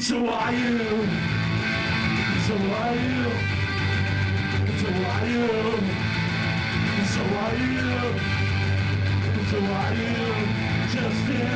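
Ska-punk band playing live and loud: distorted electric guitars, bass and drums. The full band comes in at the very start after a quieter passage and plays on at a steady level.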